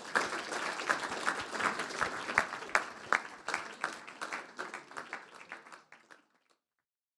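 Audience applauding, the clapping thinning out and dying away about six seconds in.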